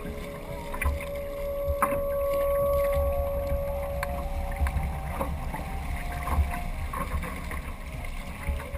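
Water rushing and splashing along the hull of a Weta trimaran under sail, with wind buffeting the microphone in a gusty low rumble. A thin steady whistle-like tone sounds for a few seconds early on and again near the end.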